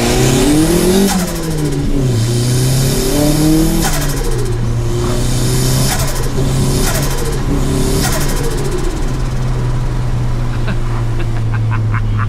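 Turbocharged Mitsubishi Mirage's 1.5-litre single-overhead-cam four-cylinder revving up hard and backing off several times. Each throttle lift brings a fluttery turbo compressor surge (a 'dose'), since the turbo runs with no blow-off valve. The engine then settles into a steady drone, with a few light clicks near the end.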